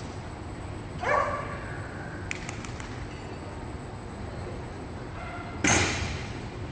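Boxer dog barking once, a short call about a second in, followed near the end by a louder, sharper sound that dies away quickly.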